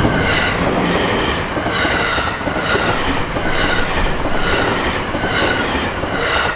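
Electric commuter train rolling through a level crossing, its wheels clattering on the rails, while the crossing's warning bell dings steadily a little more than once a second.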